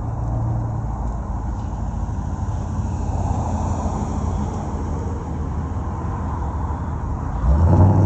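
Street traffic: a steady rush of passing vehicles' engines and tyres, with a louder, closer engine hum coming in near the end.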